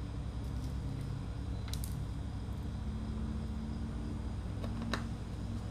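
Steady low background hum, with a few small faint clicks of tiny phone screws and a screwdriver being handled while the screws go back into a smartphone's plastic back frame; the sharpest click comes near the end.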